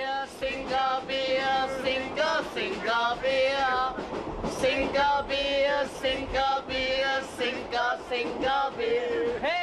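Men's voices singing together over a steady low hum inside a moving train carriage.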